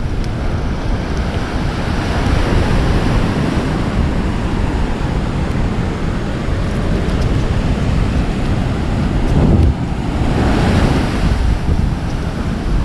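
Wind buffeting the microphone over the steady wash of surf breaking on the beach, with a wave swelling louder about ten seconds in.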